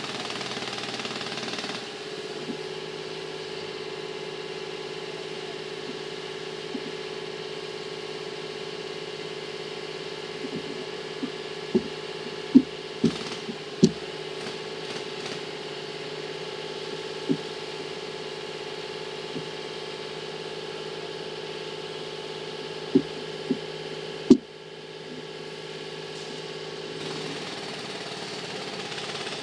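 An engine running steadily at one pitch, louder and noisier for the first two seconds. A scattering of sharp knocks and clicks comes over it, bunched in the middle and again near the end.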